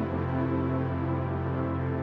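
Background music: soft ambient music with long sustained chords.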